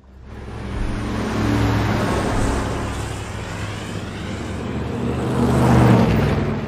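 Road traffic with a Chevrolet pickup truck driving past close by: a steady engine hum and tyre noise that swell to a peak about six seconds in and then fade as it goes by.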